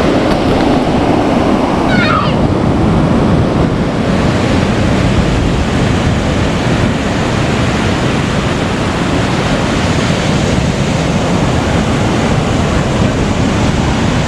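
Ocean surf washing in steadily, with wind noise on the microphone.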